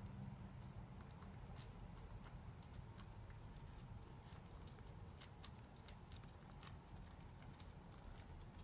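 Pet hedgehog licking and mouthing a leather shoe: faint, irregular little clicks and smacks, several a second with no steady rhythm.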